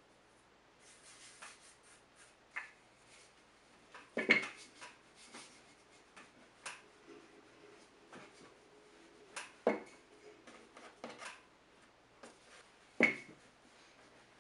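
Wooden rolling pin rolling out bao dough on a wooden tabletop: faint scraping and light clicks as it goes back and forth, with three sharp knocks of the pin on the table, about four, ten and thirteen seconds in.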